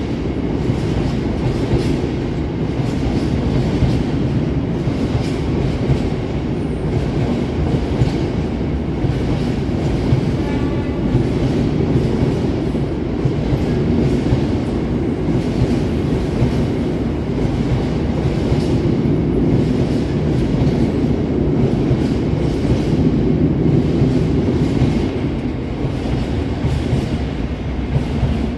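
Freight train of covered hopper wagons rolling steadily past at speed, a heavy continuous rumble with wheels clattering over the rail joints.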